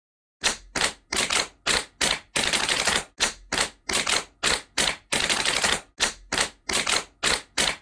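Hands clapping in a quick rhythm, about three sharp claps a second, broken by a few longer stretches of continuous rapid clapping.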